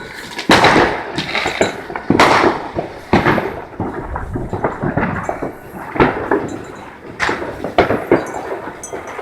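Fireworks exploding: a run of sharp bangs at uneven intervals, about a dozen, each trailing off in a long rolling echo.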